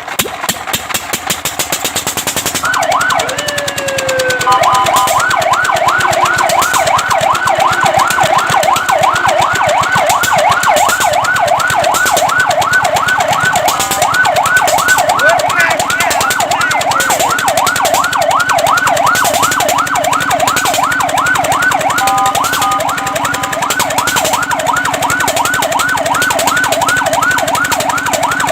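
Fire truck siren: a short wail about three seconds in, then a fast yelp of rising-and-falling sweeps, about three a second. The yelp is broken a couple of times by a short steady two-note tone, over a running engine's rapid ticking at the start.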